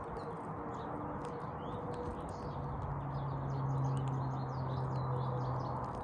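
Small birds chirping, many short high calls scattered throughout, over a steady low outdoor rumble. A low steady hum joins about halfway through.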